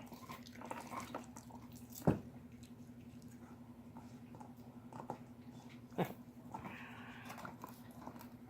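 German shepherd puppies gnawing on large raw cow bones: faint scraping and crunching clicks, with two sharper knocks about two and six seconds in. A steady low hum runs underneath.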